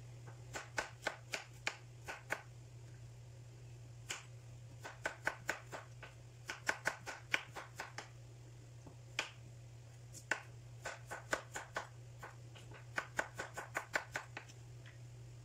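Kitchen knife chopping carrots on a wooden cutting board: runs of quick, sharp knocks, several a second, broken by short pauses. A steady low hum runs underneath.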